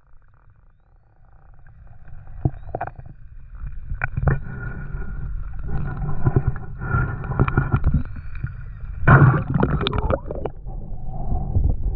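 Underwater sound picked up by a camera in a waterproof housing while the diver swims: a continuous low rumble of water moving past the housing, with irregular knocks and gurgles that grow louder about four seconds in and again about nine seconds in.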